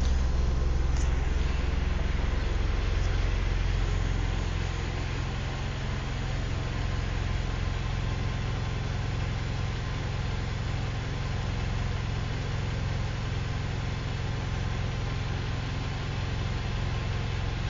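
Mazda 3 engine idling steadily through an aftermarket Speed cat-back exhaust, with a K&N air filter, giving a deep, even exhaust drone. It is a little louder in the first few seconds, then settles to a constant level.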